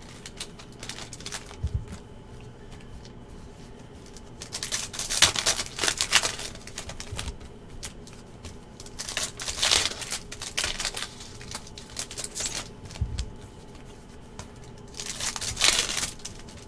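Foil football card pack wrappers crinkling and tearing as packs are opened by hand, in three bursts of a second or two each. Between them there is quieter card handling and two soft low thumps.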